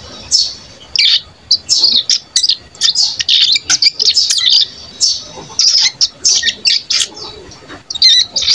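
One-month-old male ciblek gunung, a young prinia, practising its soft twittering (ngeriwik halus) as it learns to sing: a quick, uneven run of short, high chirps, with a brief lull near the end.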